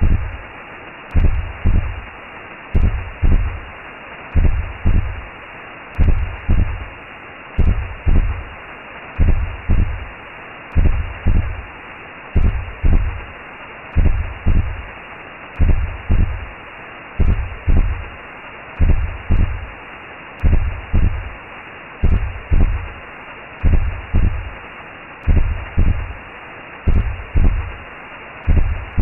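Recreated womb sound: a slow heartbeat of paired low thumps, about one beat every second and a half, over a steady whooshing hiss, made to soothe a baby to sleep.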